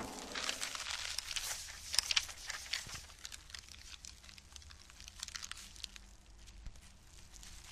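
Crash-effect sound of debris settling after an impact: scattered small ticks, crackles and crinkles of falling pieces and paper, thinning out and fading.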